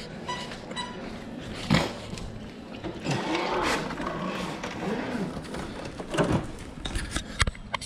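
Belt-drive Arrma Felony 1/8 RC car: two short electronic beeps at the start, then its brushless motor whirring up and down in short throttle blips. A few sharp knocks come through, the loudest about two seconds in and near the end.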